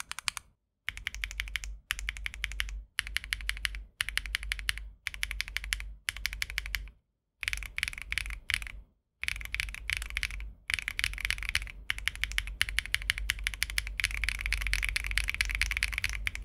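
Mechanical keyboard with KTT Hyacinth linear switches being typed on fast, in bursts of about a second with short pauses between them, then in one continuous run of keystrokes from about two-thirds of the way in.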